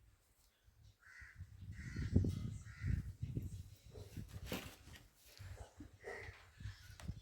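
A crow cawing, three caws in quick succession about a second in and one more near the end, over a low rumbling noise.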